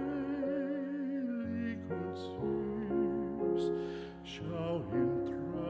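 Background music: a slow, gentle piano piece with sustained chords and a held, wavering melody line.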